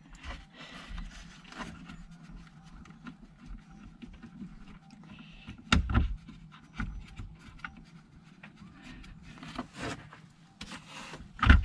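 Small clicks, scrapes and knocks of hand work on a VHF marine radio's mounting, as its side fixings are undone and the set is worked loose in its panel slot. A louder knock comes about six seconds in and another near the end.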